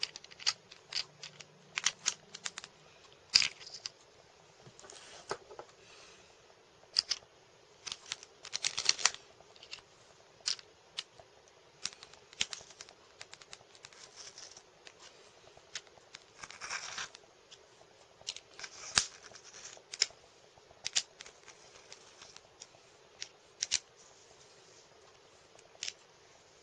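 Small tools and wristwatch parts being handled while a watch battery is changed: irregular sharp clicks and taps, with a few brief scrapes, the longest about two thirds of the way through.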